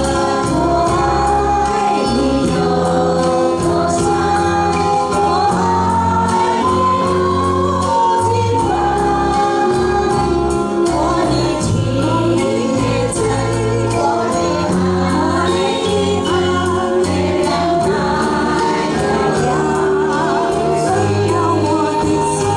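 A group of singers singing a slow song together in chorus over an accompaniment with a steady beat.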